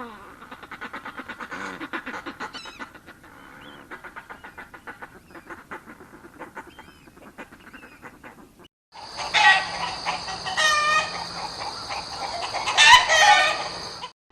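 Northern fulmar cackling in rapid, repeated calls for about nine seconds. After a brief silence comes a louder clip of a chicken clucking over a steady hiss, which stops just before the end.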